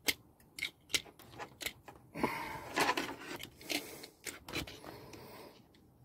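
Sharp clicks and snips of a hand tool trimming the insulation back on a car's starter wire to expose more bare wire. Several separate clicks in the first two seconds, then about a second of scraping with a few hard strokes, then more scattered clicks.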